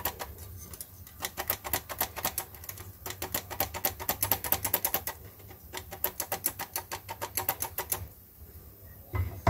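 Metal cup flour sifter clicking rapidly as its handle is worked to sift flour, several clicks a second in runs with short pauses, stopping about eight seconds in.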